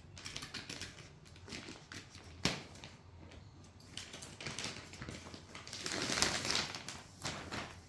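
Laptop packaging being handled: cardboard box and paper rustling, with small clicks and taps, a sharp knock about two and a half seconds in, and a longer rustle near the end.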